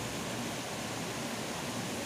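River water rushing, a steady even hiss without any change.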